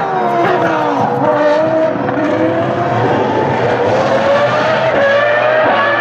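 V10 Formula One car's engine at high revs, its pitch falling as the car brakes and passes through the corner. From about halfway it climbs again as the car accelerates away, with a gear change near the end.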